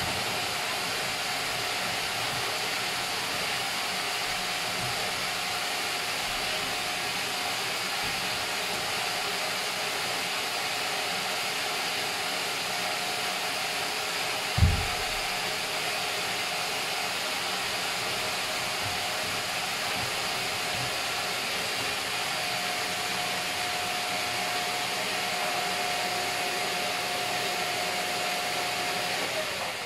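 Vacuum cleaner running steadily, a rush of air with a thin whine over it, cutting off at the end. A single thump about halfway through as a sofa cushion is moved.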